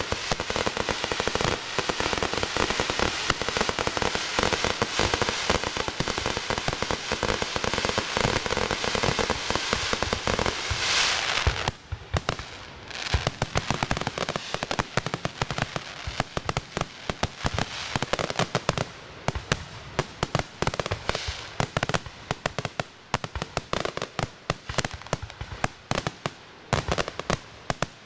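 Fireworks display finale: a dense, continuous barrage of shell bursts and crackling for about the first eleven seconds, a brief dip, then rapid volleys of sharp bangs and crackles.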